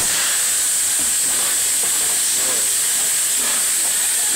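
Steam hissing loudly and steadily as it escapes around the front end and cylinders of the LNER Peppercorn A1 Pacific steam locomotive Tornado.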